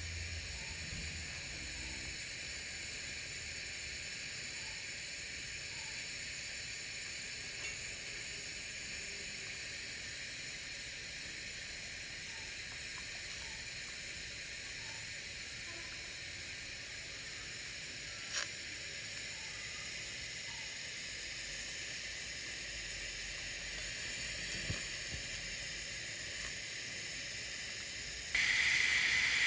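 TIG welding arc running on carbon steel pipe at 90 amps during the root pass: a steady hiss. Two sharp ticks come about 8 and 18 seconds in, and the hiss steps up louder just before the end.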